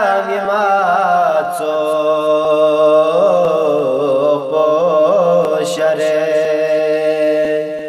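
A young man's solo voice singing a Balti qasida, a devotional praise song, in a long wavering, ornamented melodic line over a steady held backing note. The singing fades out near the end.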